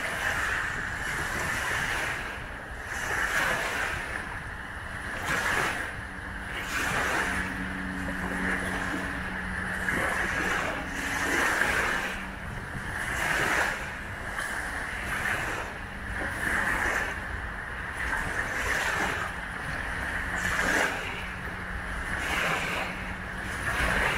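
Small wind-driven waves lapping and breaking on the river shore, one wash surging in about every one and a half to two seconds.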